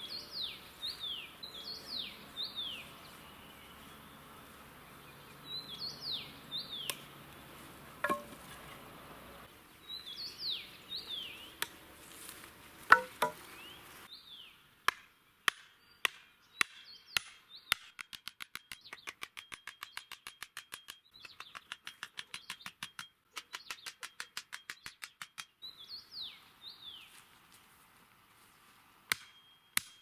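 A metal stake being driven into the ground with the back of an axe: sharp metallic knocks, scattered at first, then a quick even run of about four blows a second lasting several seconds. Small birds chirp in the first half, with a quick falling call repeated in bursts.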